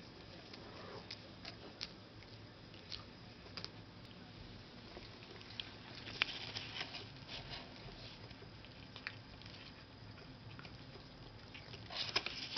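A calico cat eating a treat off the floor: soft chewing with small scattered clicks, thickest about six seconds in and again near the end.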